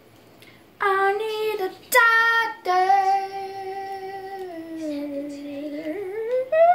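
A girl singing unaccompanied: two short notes, then one long held note that sinks lower and glides back up near the end.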